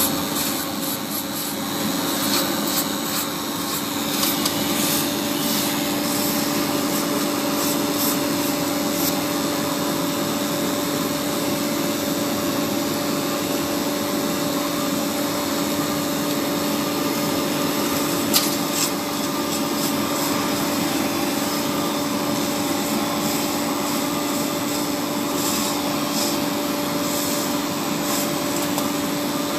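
Polygon pole welding machine running: a steady hum with a hiss over it and scattered light crackles, plus one sharp click about eighteen seconds in.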